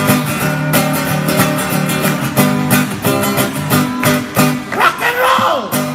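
Amplified acoustic guitar strummed in a steady rock-and-roll rhythm, about three strums a second. About five seconds in, a short voice-like sound slides up and down in pitch over the guitar.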